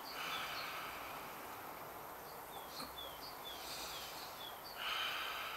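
Deep inhalations of Wim Hof-style breathing: one at the start and another near the end, with a passive exhale between. A small bird chirps in the background, short falling calls about twice a second.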